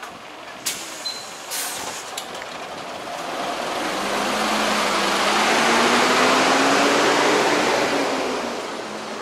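A heavy vehicle drives past on the street. Its noise swells from about three seconds in, is loudest in the middle and fades near the end, while its engine note rises as it speeds up. A few sharp clicks come in the first two seconds.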